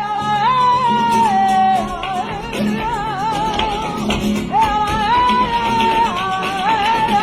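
Music: a single voice singing long, wavering, ornamented phrases over plucked guitar, in a flamenco-like gypsy style; a new phrase begins about four and a half seconds in.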